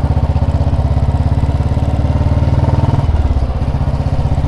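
Royal Enfield Bullet 350's single-cylinder four-stroke engine running under way with its steady, evenly pulsing beat; the note drops slightly about three seconds in.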